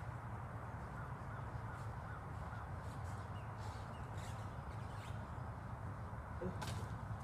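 Birds calling in the distance, short wavering calls over a steady low rumble, with a faint click about two thirds of the way in.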